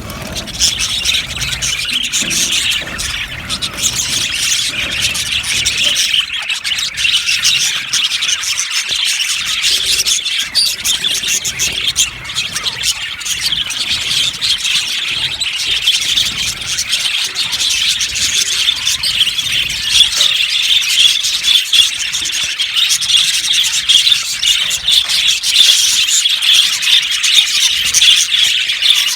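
A flock of budgerigars chirping and chattering all at once, a dense, continuous mass of overlapping high chirps with no pauses.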